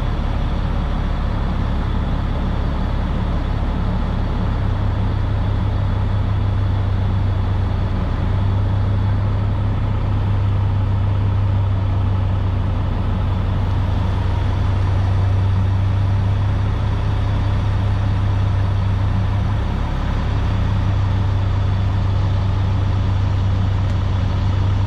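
Sterling L7500 vacuum truck's Caterpillar diesel engine running steadily, an even deep hum.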